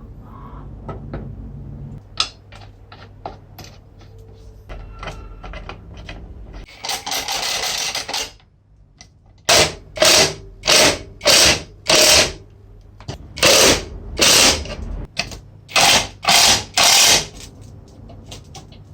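Hand work on a metal tool: scattered light clicks and knocks, then a string of about ten short, loud noisy strokes, each under half a second.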